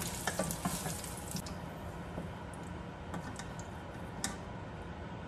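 Light, scattered clicks and taps of a wooden spatula and a metal utensil against a frying pan as fried potato and carrot pieces are lifted out, over a low sizzle of the hot oil left in the pan.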